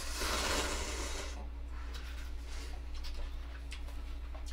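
Eating noises close to the microphone: a noisy rush lasting about a second and a half, then scattered small clicks and taps, over a steady low electrical hum.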